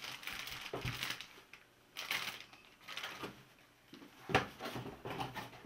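Clear plastic bag crinkling and rustling in irregular bursts as the wrapped rework station inside it is handled, with one sharp knock a little past four seconds in.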